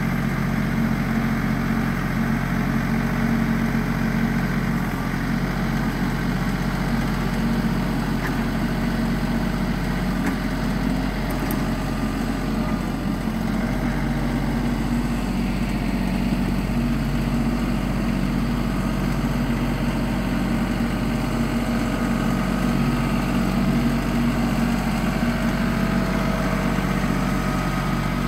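Diesel engine of an LS compact tractor running steadily at working speed while it drags a box blade through loose dirt.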